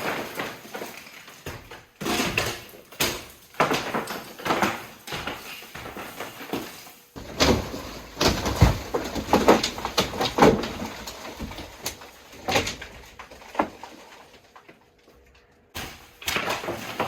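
Plaster-and-lath ceiling being stomped through from the attic: a run of irregular heavy thuds, cracks and crashing falls of plaster, lath and insulation, busiest in the middle and briefly stopping near the end before the impacts start again.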